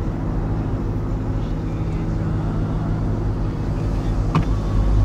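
Steady low drone of a car's engine and road noise inside the cabin while driving, with a brief click about four and a half seconds in.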